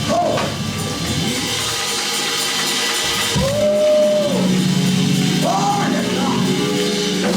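Live gospel praise-break music: a church band with drums and a held low note, with a voice wailing a few long drawn-out notes over it, the longest about three and a half seconds in.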